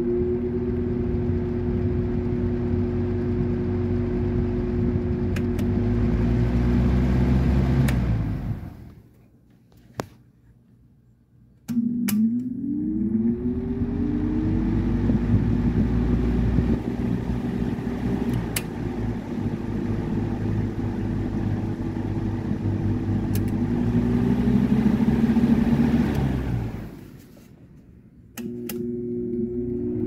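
Old classroom window fan running on low speed: a steady electric motor hum with air rushing through the blades, and a few light clicks. Twice the sound falls away over about a second, then comes straight back, the hum rising in pitch as the motor spins back up.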